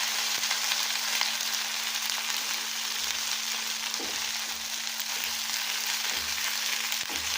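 Ground ginger sizzling steadily as it fries in desi ghee in a pan, an even hiss, with a couple of faint clicks as it is stirred.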